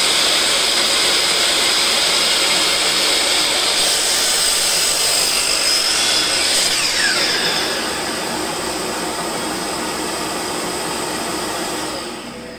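Makita LS1219L 12-inch (305 mm) 1800 W sliding miter saw running with a steady high whine while its blade cuts through a bark-covered log round. The sound drops a little about two-thirds through and fades out near the end.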